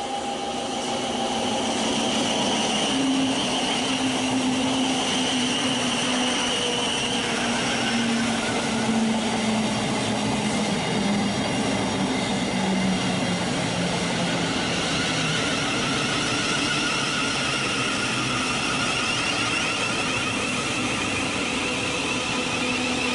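Thameslink Class 700 electric multiple unit running past along the platform: a steady rush of wheels on rail with an electric whine that slowly falls in pitch.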